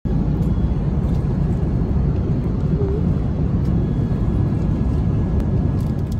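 Steady low rumble of an airliner cabin in flight, the drone of engines and airflow, with a few faint clicks over it.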